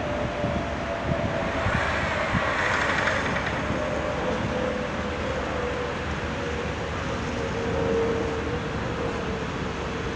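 Airbus A319-112's twin CFM56 turbofan engines droning overhead as the airliner climbs away on a go-around, with a steady tone that slowly falls in pitch as it passes.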